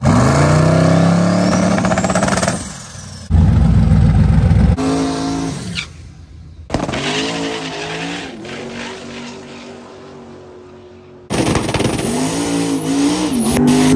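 Twin-turbo 6.0-litre LS V8 of a 1967 Chevrolet Chevelle drag car, revving and idling in several short clips that cut off suddenly. A high whistle rises and falls early in the first clip.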